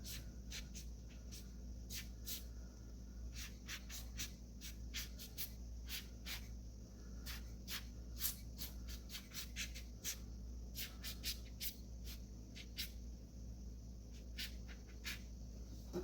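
Short, irregular puffs of air from a hand-squeezed alcohol ink air blower, often several a second, blowing wet acrylic paint around.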